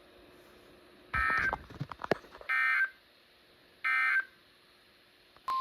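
Emergency Alert System end-of-message tones: three short, identical bursts of warbling two-tone data, each about half a second long and spaced about a second and a half apart. They mark the end of the severe thunderstorm warning. A sharp click falls between the first two bursts, and a click and a steady beep tone start at the very end.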